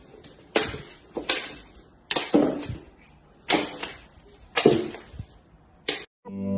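Cat playing with a wand toy on a hardwood floor: about seven sharp knocks and thumps, irregularly spaced. Acoustic guitar music starts just before the end.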